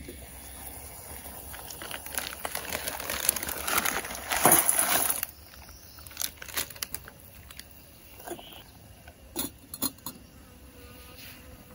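Cooking at a small camping pot on a gas-canister stove. A rushing, rustling noise builds for a few seconds and stops suddenly, then a spoon gives scattered light clinks against the metal pot.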